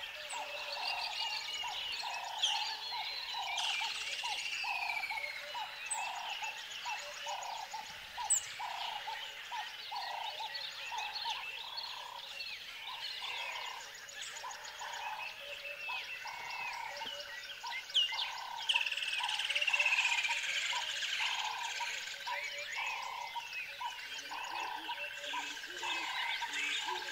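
Nature ambience: frogs croaking in a steady, evenly repeating rhythm, with many birds chirping and whistling over them.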